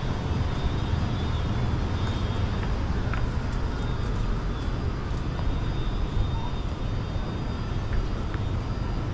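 Steady city street ambience: a low, even rumble of distant traffic with no distinct events standing out.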